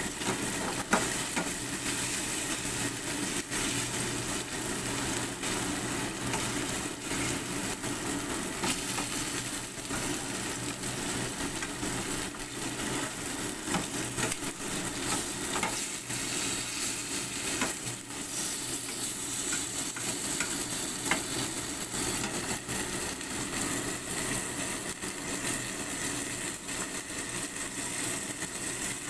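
Sliced shallots and garlic sizzling in hot oil in a nonstick frying pan, with a spatula stirring and scraping them across the pan now and then. This is the aromatics being sautéed until fragrant.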